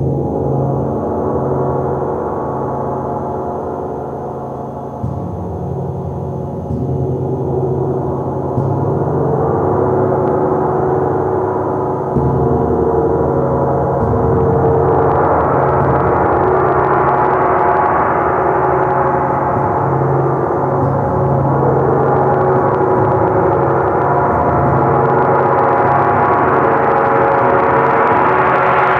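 A 45-inch hammered gong made by RM Shelledy, played continuously with a soft round-headed mallet: a dense, shimmering ring that builds, growing louder about halfway through and swelling brighter again near the end.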